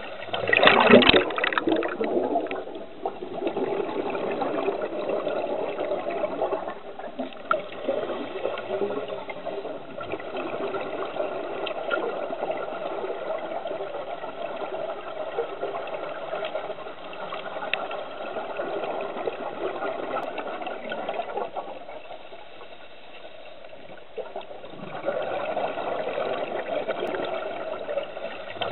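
Underwater sound of scuba diving: a continuous rushing, bubbling water noise, with a loud burst of exhaled regulator bubbles about a second in and another at the very end.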